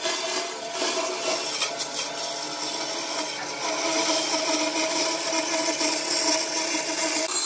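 Band saw running steadily, its blade cutting a curve through a thick softwood board.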